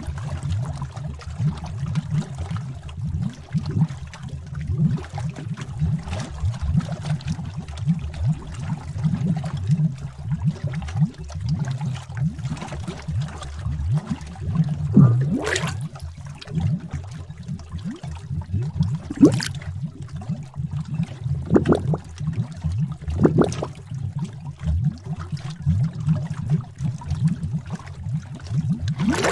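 Bubbling cauldron sound effect: thick liquid bubbling and gurgling continuously, with a few louder, sharper bubble pops in the second half.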